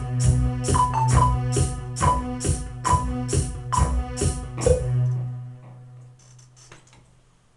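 Electronic keyboards playing a synth tune over a held bass and a steady percussion beat. The piece ends about five seconds in on a final note that fades out, followed by a few faint clicks.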